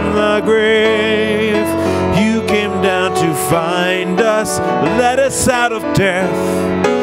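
A man singing a slow worship song with vibrato, accompanying himself on a grand piano.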